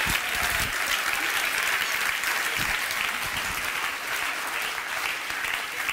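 Audience applauding steadily, a dense patter of many hands clapping that eases off a little near the end.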